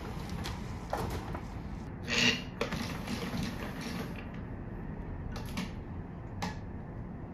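Handling noise from a large stiff sheet of material: scattered rustles and light knocks, with one loud crackling rustle about two seconds in. A few sharp clicks follow near the end.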